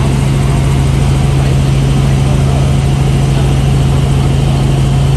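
Helicopter in flight heard from on board: a loud, steady drone of engine and rotors with a strong constant low hum.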